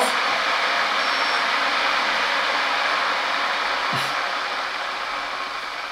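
Electric kettle heating water with a steady rushing hiss; about four seconds in its switch clicks off and the hiss starts to die away.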